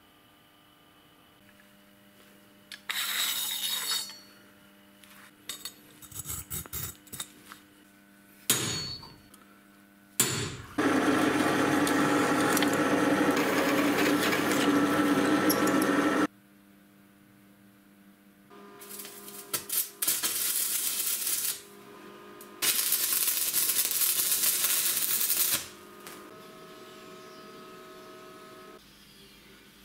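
A run of workshop sounds: a few metal clinks and knocks, then a drill press boring through a steel square tube, a steady loud grinding noise lasting about five seconds. Two shorter bursts of machine noise follow, over a steady low hum.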